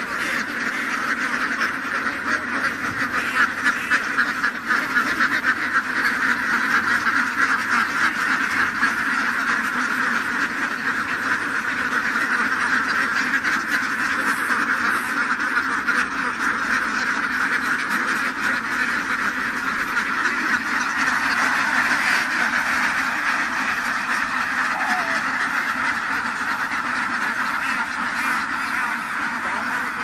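A large flock of domestic ducks quacking continuously, a dense chorus of many birds at once.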